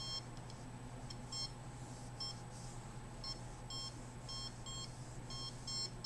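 Handheld RF meter beeping: short, high electronic beeps at irregular intervals, about two or three a second and some in quick pairs, over a steady low hum.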